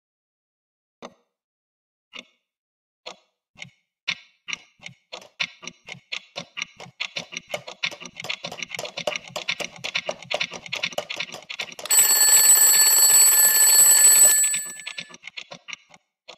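Alarm clock ticking, slow at first and speeding up into a rapid run of ticks, then a twin-bell alarm clock ringing loudly for about two and a half seconds before fading out.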